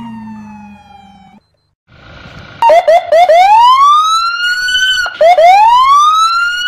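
Police car siren. A falling tone fades out within the first second and a half. About two and a half seconds in, three quick rising chirps lead into a long rising wail that breaks off sharply about five seconds in, followed by two more chirps and another rising wail.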